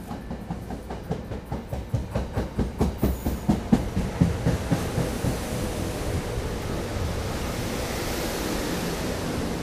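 SEPTA electric commuter train pulling into the platform: its wheels click over the rail joints, quickening and getting louder over the first few seconds, then settle into a steady rumble with a rising hiss near the end.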